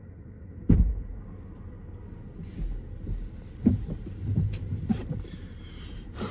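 Low steady hum of a car interior, with one sharp heavy thump about a second in and several softer knocks and rustles after it.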